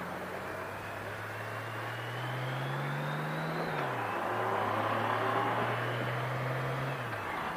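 Motorcycle engine pulling away and accelerating. Its pitch rises, then drops with a gear change about four seconds in, holds steady, and drops again with another shift near the end.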